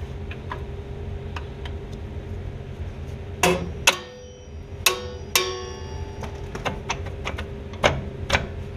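Steel brake return spring and spring tool clinking against the anchor pin and shoes of a duo-servo front drum brake as the spring is stretched on. There are several sharp metallic clanks about three and a half to five and a half seconds in, some with a short ring, and light clicks near the end.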